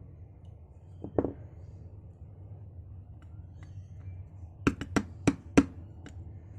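Small metal tools clicking and tapping against a dimple lock while a pin is worked out of its chamber during gutting, the pin refusing to come out. One knock about a second in, then a quick run of five sharp clicks near the end, over a low steady hum.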